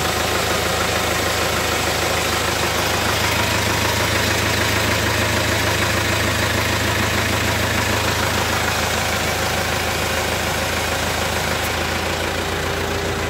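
Rambo 100 post driver's engine and hydraulic pump running steadily under load as the mast is tilted on its Y axis. The sound eases slightly near the end.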